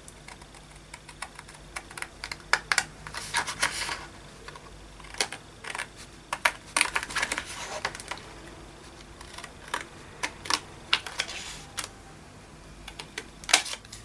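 Scissors cutting paper: irregular short, crisp snips and clicks in several clusters with brief pauses between them.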